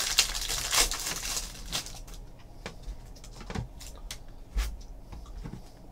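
Plastic wrapping rustling as trading cards are unwrapped, then a few faint scattered clicks and taps as the cards are handled and set down on the table, with one dull thud a little after the middle.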